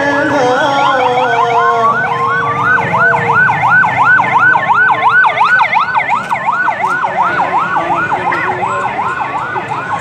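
An electronic siren yelping: a fast, regular up-and-down wail, about three sweeps a second. It starts about two seconds in and rises over the dying end of the qari's voice through the PA.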